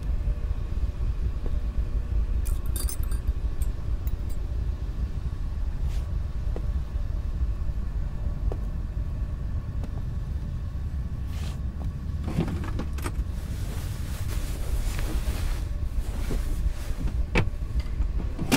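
Steady low rumble throughout, with a brief light metallic jingle about three seconds in. Scattered clicks and soft rustling follow in the second half.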